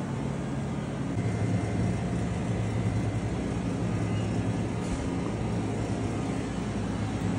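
Steady low hum of refrigerated meat display cases in a butcher shop, their compressors and fans running.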